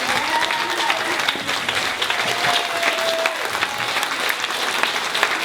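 Audience applauding steadily, a standing ovation, with a few voices calling out over the clapping.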